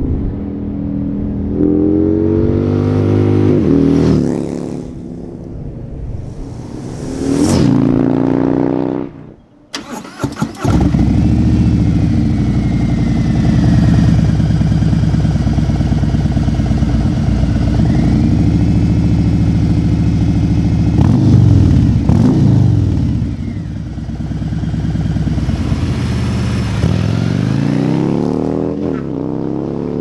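Harley-Davidson 114 V-twin engine through Khrome Werks slip-on mufflers run with no baffles. The bike rides by with the pitch climbing and then falling as it passes, and after a short break the engine runs steadily with several revs rising and falling.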